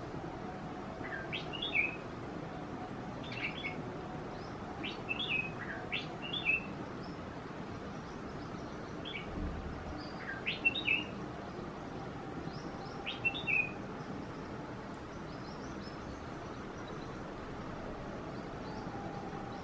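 Birds calling with short, sharp chirps, often two in quick succession, repeated every second or two. Fainter, higher-pitched chirps follow in the last third.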